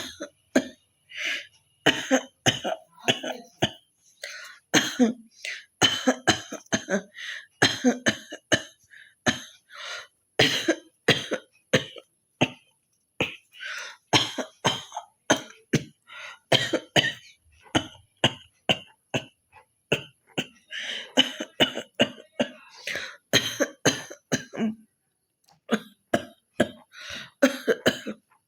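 A woman coughing and hawking to clear phlegm from her throat, over and over, in short harsh bursts about one to two a second, with a brief pause near the end.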